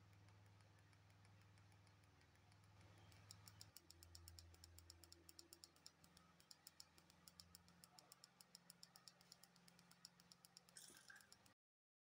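Near silence: a faint low hum, joined about three seconds in by faint rapid ticking, several ticks a second. All sound cuts off suddenly near the end.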